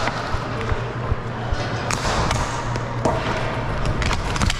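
Cosom hockey play: scattered sharp clacks and thuds of plastic sticks and ball striking on a gym floor, with a quick cluster of knocks near the end, over a steady low hum.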